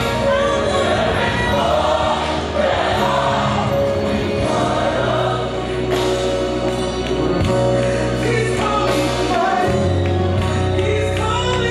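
Gospel music: a choir singing over sustained bass notes.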